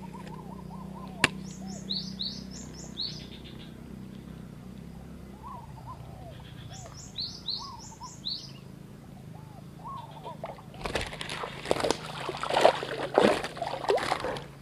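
Birds chirping in repeated groups of short, falling high notes, with lower arched calls between. About eleven seconds in, loud splashing and churning of water starts and goes on to the end as a hooked snakehead thrashes at the surface.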